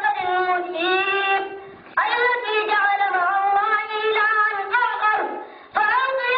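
A child chanting in a high voice, long melodic phrases of held, wavering notes, with breaks for breath about two seconds in and near the end.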